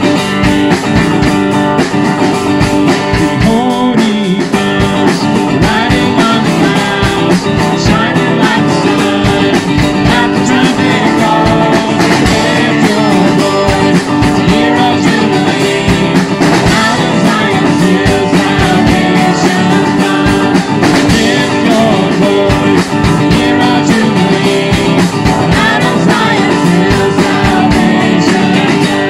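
Live worship band playing a loud rock-style song on guitar and drum kit, with singing.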